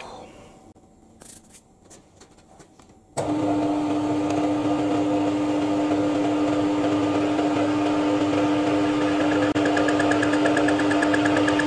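A few light clicks, then about three seconds in a Harrison lathe starts up suddenly and runs with a steady hum from its motor and geared headstock, the chuck spinning. A faint, rapid pulsing ticking joins in near the end.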